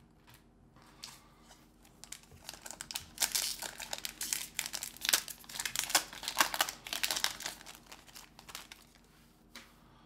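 Foil booster pack wrapper crinkling as it is handled and opened, a dense crackle that builds over a couple of seconds, peaks in the middle and dies away near the end.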